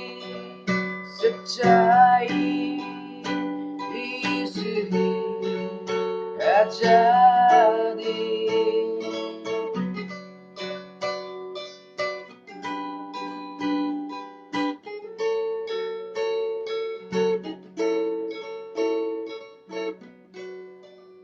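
Instrumental music: picked acoustic guitar notes over sustained chords and a steady low note, with two short gliding melody phrases about two and seven seconds in.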